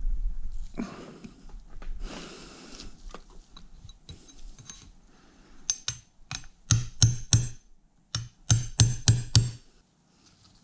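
A run of about a dozen sharp metallic knocks and clicks in quick groups, from hand work on a CV axle and its boot clamp, after a stretch of scraping and rustling.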